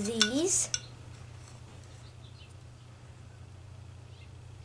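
A child's brief wordless hum with a bending pitch, with two sharp clicks in the first second; after that only a steady low hum and faint handling of Lego pieces.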